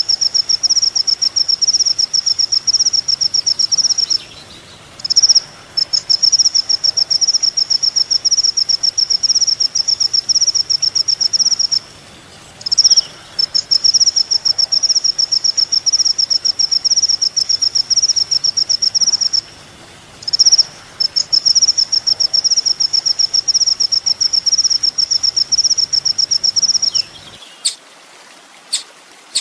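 High, rapid, evenly pulsed songbird trill from a masteran training recording, in long runs of about four to seven seconds. Brief chirps fill the short breaks, and a couple of sharp chirps come near the end.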